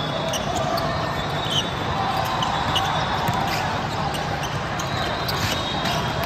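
Basketball being dribbled on a gym floor during play, amid short high squeaks and a steady murmur of voices in the hall.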